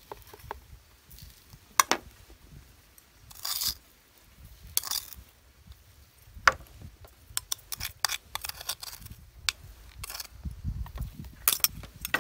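A metal spoon clicking and scraping against a bowl, a tray and a plastic jug as chili-salt seasoning is spooned onto fried chicken wings. Scattered light clicks are broken by a couple of short rustling scrapes.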